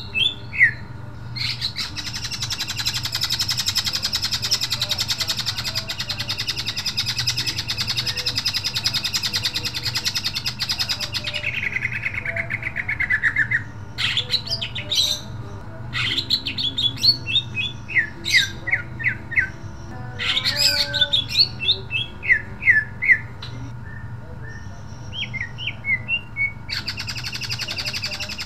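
Caged male greater green leafbird (cucak ijo) singing loud and sharp: a long rapid buzzing trill of about ten seconds, a run of falling notes, then a string of separate sharp whistled notes, with another rapid trill starting near the end. A steady low hum runs underneath.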